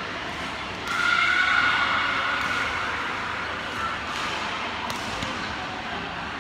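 Badminton rally sounds on an indoor court: a few sharp racket hits on the shuttlecock, and a high-pitched squeal about a second in, the loudest moment, as the rally ends.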